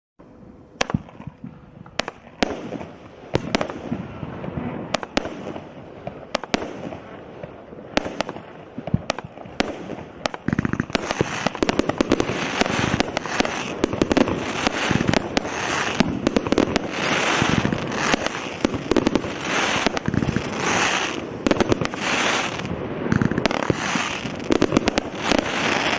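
Hallmark Fireworks Terra Ferma 25-shot barrage firing: a sharp launch bang every half second to a second. From about eleven seconds in the bursts come louder and closer together, filled with crackling hiss.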